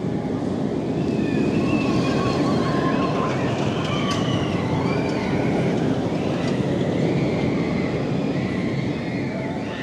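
Nighthawk, a Vekoma flying roller coaster, with its train running along the track in a steady rumble and high wavering tones over it.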